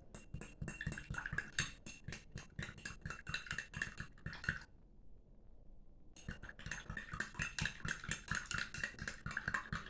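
A small spoon stirring in a glass of warm water, lemon juice and honey, with rapid repeated clinks and scrapes against the glass. The clinking stops for about a second and a half midway, then picks up again.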